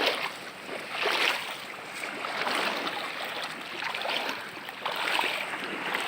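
Small waves washing against the shore, the noise swelling and easing every second or so.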